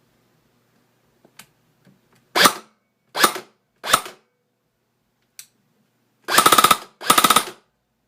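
Airsoft gun firing: a couple of faint clicks, then three single shots about three quarters of a second apart, then two short rapid full-auto bursts of about six or seven shots each near the end.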